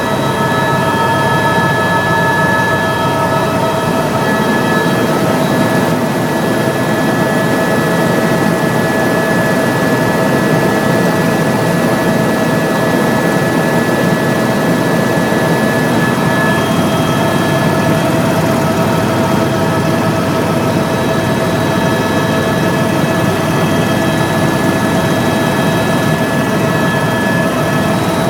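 Helicopter engine and rotor noise heard on board: a steady loud drone with several steady whining tones over it.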